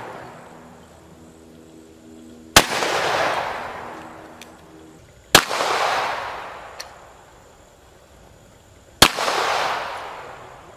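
Three gunshots a few seconds apart, each a sharp crack followed by a long echo that rolls away over a couple of seconds.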